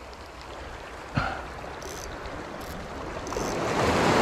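Small sea waves washing against the bank in a steady rush that swells louder near the end, with a single sharp click about a second in. The water is a little choppy in the wind.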